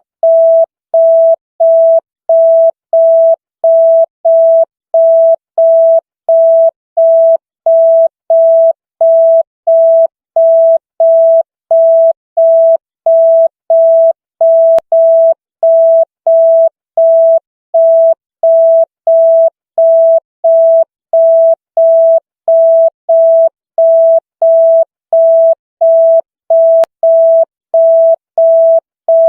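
Electronic beep tone of one steady pitch, pulsing on and off at an even rate of nearly two beeps a second, the '100 signal' police sound effect.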